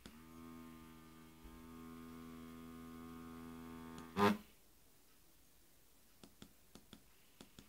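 Small DC motor under PWM drive from a PIC microcontroller, humming with a steady pitch and many even overtones, the whine of the PWM switching in its windings. About four seconds in there is a loud click and the hum stops, followed by a few light clicks.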